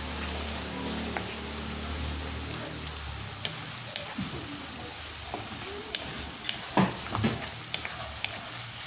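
Onion, garlic and tomato sizzling in oil in a wok while a wooden spatula stirs and scrapes them, sautéing until the tomatoes soften. Sharp taps and scrapes of the spatula against the pan come through over the hiss, more of them in the second half. A low hum stops about three seconds in.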